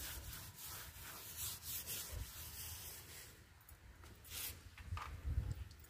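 Paintbrush scrubbing acid solution over pool tiles and grout: repeated hissy rubbing strokes that ease off around the middle, with a low bump about five seconds in.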